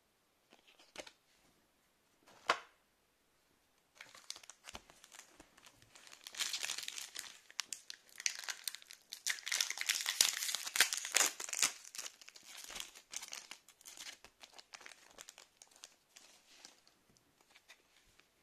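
Plastic booster pack wrapper of Pokémon trading cards crinkling and tearing as it is opened: a dense crackle lasting about twelve seconds, loudest in the middle. Two short taps come just before it.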